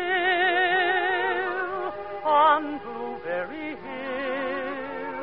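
Orchestral music of a slow ballad: a wavering, vibrato melody over long held chords, with a brighter, louder note about halfway through.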